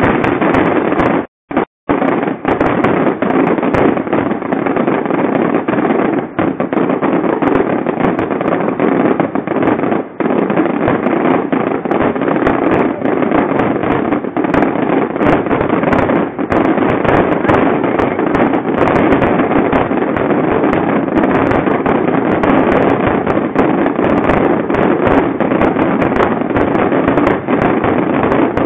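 Fireworks display: a dense, continuous barrage of crackles and bangs running together into a steady wash of noise. The sound cuts out twice, very briefly, about a second and a half in.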